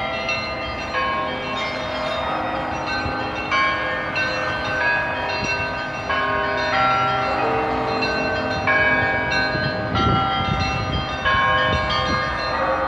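Church bells ringing, several bells of different pitch struck in overlapping succession, over a low rumble of street traffic.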